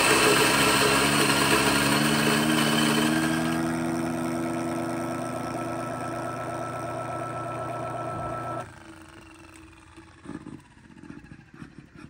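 Turin DF64P 64 mm flat-burr coffee grinder grinding beans: a steady motor hum with a grinding rattle that slowly grows quieter, then cuts off suddenly about three quarters of the way through. A few light clicks and taps follow.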